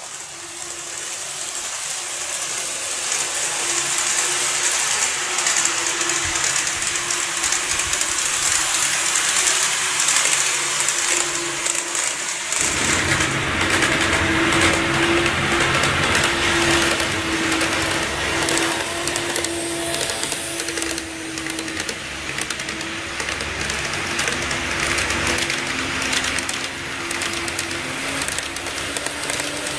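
KATO N-gauge model trains running on track: a steady whir of the small electric motors and wheels rolling on the rails. About twelve seconds in the sound cuts to a louder, lower rumble.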